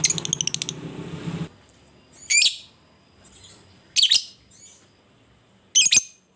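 Lovebird calling: a fast run of sharp chirps at the start over a low noise, then three loud, shrill, short screeches spaced about a second and a half apart, with faint chirps between them.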